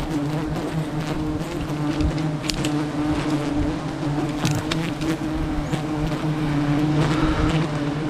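A swarm of giant honeybees buzzing, a steady low hum as they are smoked off their open comb, with scattered crackles of twigs and leaves.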